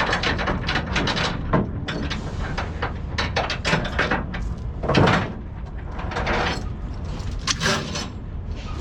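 Steel tie-down chain clinking and clanking as it is handled and hung up, with a loud clank about five seconds in, over a steady low rumble.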